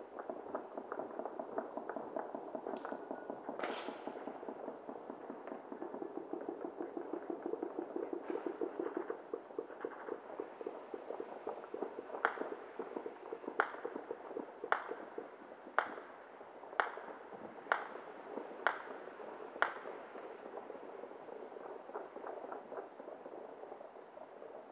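Distant New Year's fireworks and firecrackers crackling and popping without pause, with two high whistles about three and four seconds in. Midway, eight sharp bangs ring out about a second apart.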